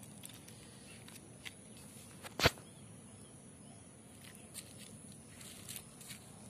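A single sharp knock about two and a half seconds in, with a softer tap just before it, as the flapshell turtle's hard shell is set down on the motorcycle seat. A few faint clicks follow over a low steady background.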